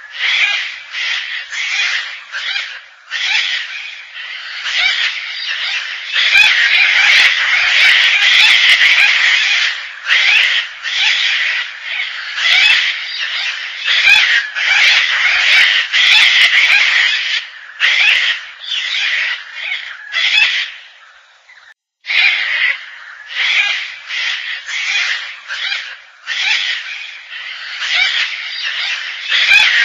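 Gang-gang cockatoo calls: a long run of harsh, rasping calls, dense and overlapping in places, with a moment's break about three-quarters of the way through.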